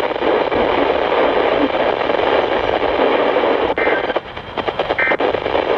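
Steady radio static hiss from a weather-radio receiver between transmissions. In the second half it breaks up with clicks and dropouts, and two short high beeps sound about a second apart.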